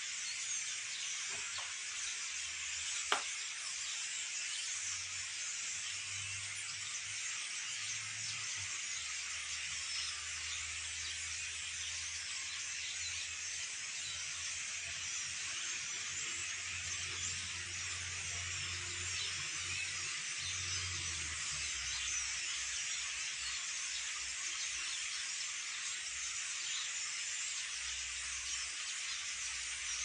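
A large flock of birds calling all at once, a continuous high-pitched chatter that holds steady throughout. A single sharp click sounds about three seconds in.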